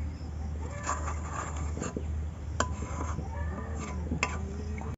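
Metal spatula scraping and clicking against an aluminium karai while thick, jam-like mango pudding is stirred. A steady low hum sits underneath.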